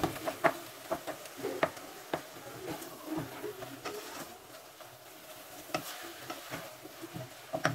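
Wooden spoon stirring ground meat in a metal pot, scraping and knocking against the pot at irregular moments over a faint sizzle of the meat frying. The knocks come more often in the first few seconds.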